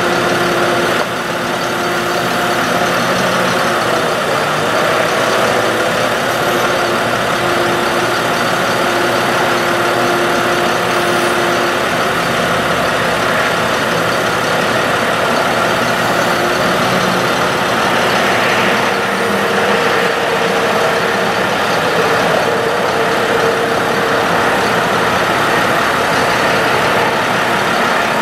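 Ford F-750 bucket truck's engine running steadily with the PTO driving the boom hydraulics, a constant drone with a few held tones that shift in pitch now and then.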